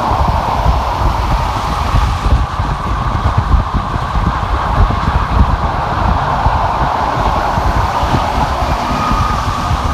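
Car driving at freeway speed: steady tyre and wind noise over an uneven low rumble.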